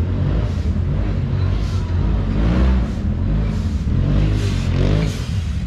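Side-by-side UTV engine under throttle, its pitch rising and falling repeatedly as it revs up and eases off.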